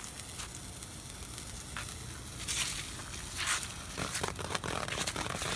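Morning Glory sparklers burning with a fizzing sizzle and crackle, the crackling growing louder about halfway through.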